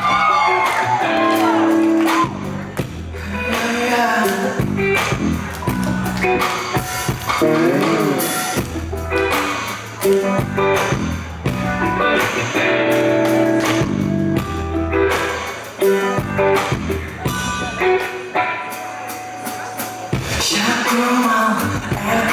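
A live band playing a song: a singer over guitar, with a deep bass line and a drum kit keeping the beat.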